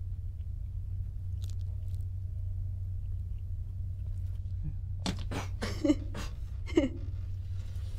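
Faint chewing of a burrito, then a woman's short burst of laughter about five seconds in, a few quick breathy strokes. A steady low hum lies underneath.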